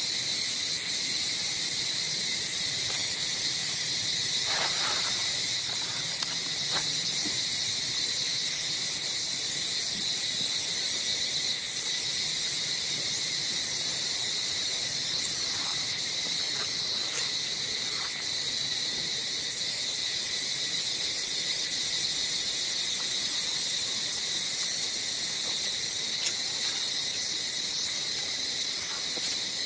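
Steady chorus of insects, an even high-pitched buzzing drone that does not let up, with a few faint short sounds over it.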